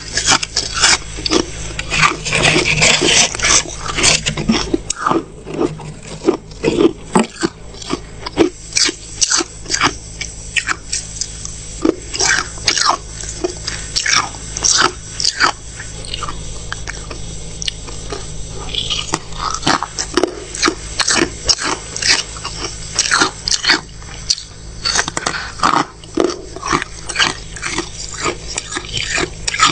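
Close-up crunching of freezer frost being bitten and chewed: rapid, irregular crisp crunches in clusters, with a few short pauses.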